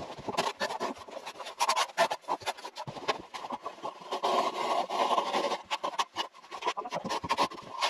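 Irregular scraping, rubbing and knocking of hand masonry work with aerated concrete (Ytong) blocks, with a denser run of scraping about four to five seconds in.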